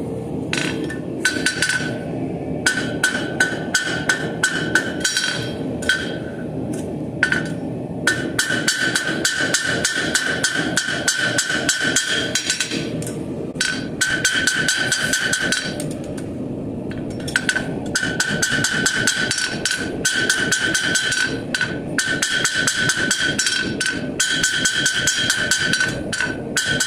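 Hand hammer striking hot steel held in tongs on an anvil, in fast runs of blows broken by a few short pauses, with the anvil ringing at a steady high pitch through each run.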